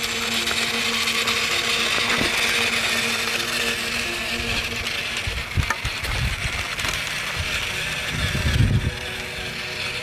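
Small electric motor and plastic gears of a toy remote-control tractor whirring steadily, with a few low knocks.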